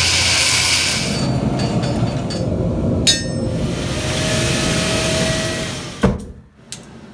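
Blacksmith's hammer striking metal a few times over a steady rushing noise; the hardest ringing strike comes about six seconds in, and the noise fades out just after.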